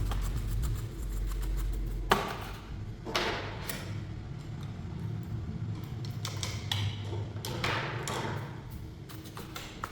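Knocks, clunks and short scraping sounds of a rice cooker's parts being handled and fitted together, several irregular knocks a few seconds apart, with a low hum over the first two seconds.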